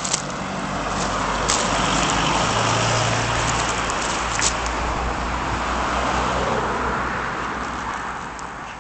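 A single motor vehicle passing on the road: engine hum and tyre noise that build up, peak a couple of seconds in, then fade away.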